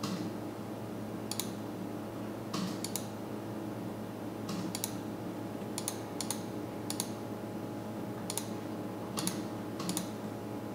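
Computer mouse button clicks, about a dozen scattered irregularly, several as quick press-and-release pairs, over a faint steady hum.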